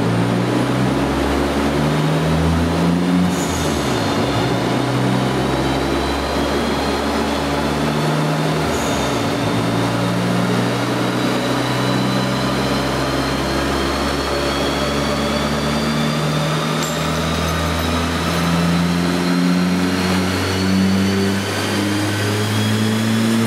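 Turbocharged VW Polo G40 running on a rolling-road dyno: a loud, continuous engine and roller drone whose low pitch shifts up and down in steps, under a thin whine that slowly rises in pitch.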